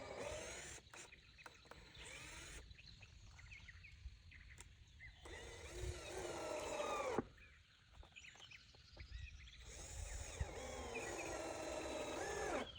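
Repeated animal calls in several bouts. Each call is drawn out and bends up and down in pitch, the longest bouts about 5 to 7 seconds in and again from about 10 seconds to near the end.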